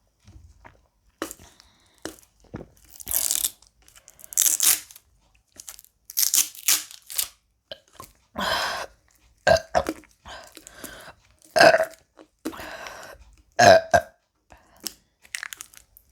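A woman burping repeatedly from the gas of the Sprite she is drinking, a string of separate burps, the loudest ones in the second half. Short noisy rustling sounds come between the burps.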